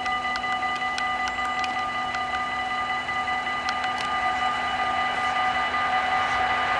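Dutch level-crossing warning bells ringing steadily while the barriers are down, with a few sharp clicks in the first seconds. From about four seconds in, the growing rush of an approaching Mat '64 train rises beneath the bells.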